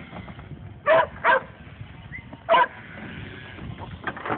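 A kelpie dog barking: three short, loud barks, two in quick succession about a second in and a third about two and a half seconds in.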